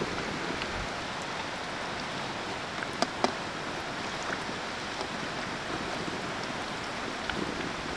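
Potato and semolina fingers deep-frying in hot oil: a steady sizzle with scattered crackles, and two sharp clicks about three seconds in.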